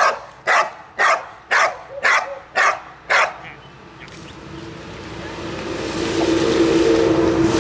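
A dog barking steadily at a protection-sport helper hidden in a blind (a bark and hold), about two barks a second, stopping a little after three seconds in. Then a vehicle's engine hum grows steadily louder, as a vehicle approaches on the road.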